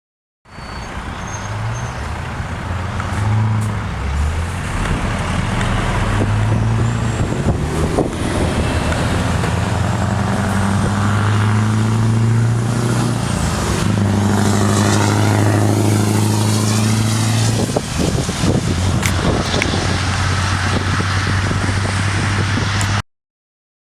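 Scania V8 truck with a straight-piped (open) exhaust driving by, its engine note stepping up and down in pitch. It crackles and pops from the exhaust, with a cluster of sharp cracks about three-quarters of the way through.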